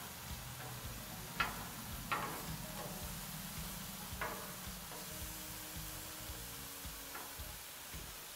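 Scallops, shrimp, asparagus and potatoes sizzling on a hot Blackstone flat-top griddle. A few sharp clicks of steel tongs are heard as the scallops are turned.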